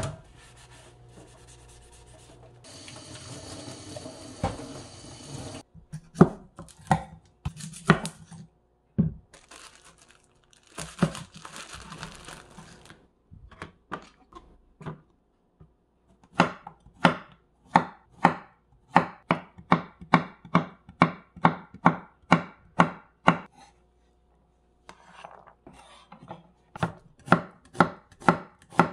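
Kitchen knife chopping vegetables on a wooden cutting board, scattered cuts at first and then a long run of steady strokes about two a second. Running water and dish-washing at the sink are heard in the first few seconds.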